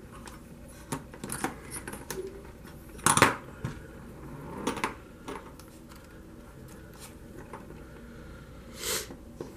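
Small clicks and knocks of hand tools and the plastic and metal parts of a radio-control truck's rear suspension being handled and fitted by hand, irregular, with the loudest knock about three seconds in.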